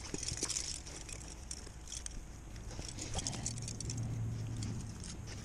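Rustling and scuffing of clothing and dry grass as trout are handled onto a stringer, with many small clicks and taps. A faint low hum rises in the middle.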